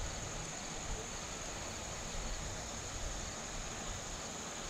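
Steady outdoor ambience: a constant high-pitched insect drone over a low, uneven rumble of wind on the microphone.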